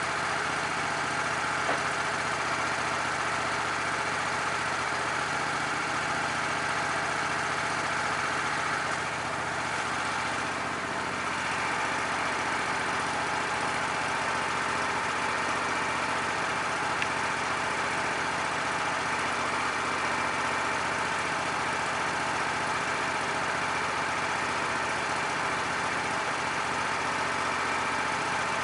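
Sawmill engine running steadily, dipping a little about ten seconds in.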